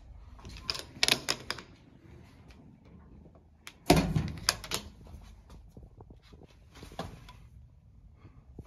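Toilet-stall door being pushed shut and its slide-bolt latch worked by hand: a run of clacks and rattles, with the loudest knock about four seconds in and a few more clicks near the end.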